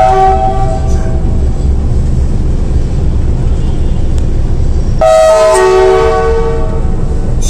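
Horn of the Pakistan Railways RGE-20 diesel locomotive 5104, heard from inside its cab, sounding several tones at once. A short blast comes at the start and a longer blast about five seconds in, over the steady low rumble of the locomotive.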